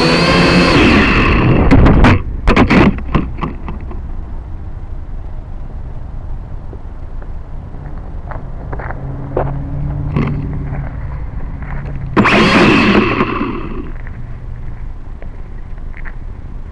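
Small camera drone's propeller motors whining up close, cutting out about two seconds in with a few sharp knocks as the drone comes down among rocks. Then faint scattered clicks, and about twelve seconds in the motors spin up again briefly for a second or so before stopping.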